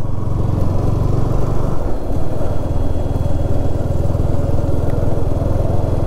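Motorcycle engine running steadily under way, its note dipping briefly about two seconds in before picking up again.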